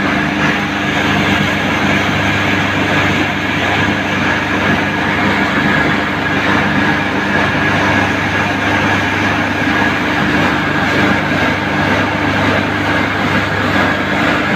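Straw grinder hammer mill running steadily: a loud, even machine noise with a constant hum and a high whine over it.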